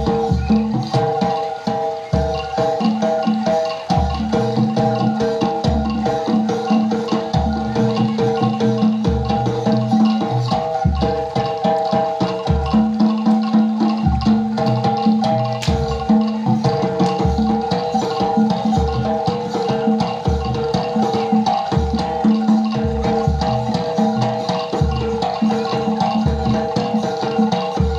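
Jaranan accompaniment music: a gamelan-style ensemble of ringing bronze metallophones over steady, regularly repeated drum strokes.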